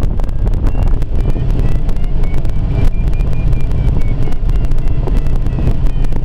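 Glider in flight: airflow and wind buffeting the microphone in the cockpit, a loud steady rumble with crackling, and faint short high beeps coming and going.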